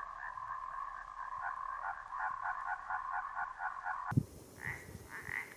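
A chorus of frogs croaking, many rapid pulsed calls overlapping. About four seconds in the sound changes abruptly to a few separate calls, with a low thump.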